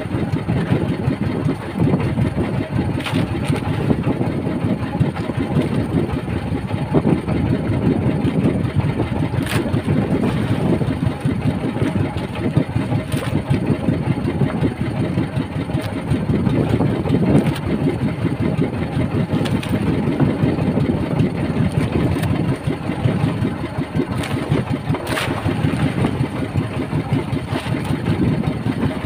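Outrigger boat's engine running steadily at idle.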